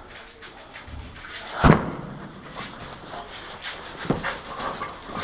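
A sharp thump about a second and a half in and a lighter knock near four seconds, amid the rustle and knocks of a person moving in tactical gear.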